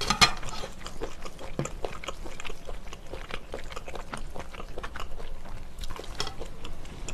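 Close-up eating sounds: chewing of spicy stir-fried octopus, many short wet mouth clicks, with one louder sound right at the start. Chopsticks stir noodles and octopus in a bowl.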